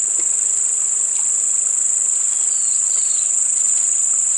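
Chorus of insects such as crickets or cicadas: a steady, high-pitched, unbroken buzzing drone.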